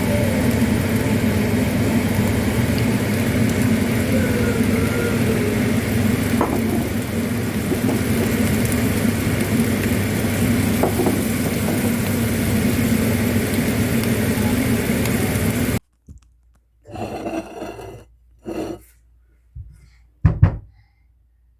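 Steady stovetop frying noise with a low hum underneath, as nasi goreng (fried rice) cooks in a pan. It cuts off abruptly about three-quarters of the way through, leaving a few short knocks and clatters.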